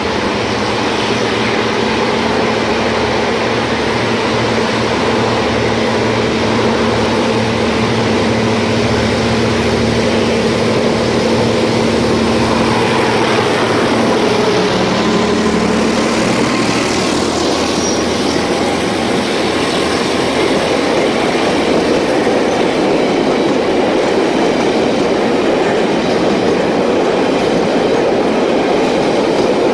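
A diesel-hauled train passing close by. The locomotive's engine drones, and its pitch drops as it goes past about halfway through. The wagons then roll by with steady wheel-on-rail noise and some clickety-clack.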